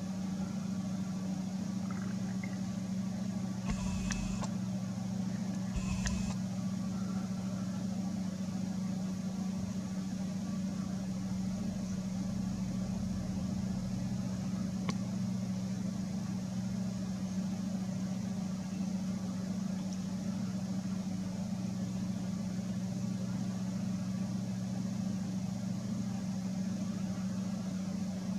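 A steady low mechanical hum like an idling engine, unchanging throughout, with two brief noises about four and six seconds in.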